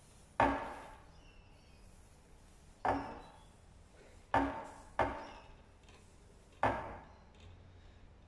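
Thin timber strip knocking against a clamped steel rod while it is bent over the heated rod: five sharp knocks, each with a short ring, the last about two-thirds of the way in.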